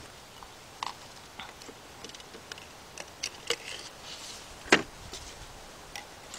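Scattered light plastic clicks and knocks from ignition coils being handled and set loosely into their spark plug wells on a Volkswagen Beetle 2.5 engine, with one sharper knock near three-quarters of the way through.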